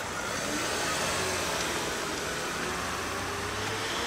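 A minivan's engine running steadily as the van pulls away, a low hum with a faint note that slowly rises.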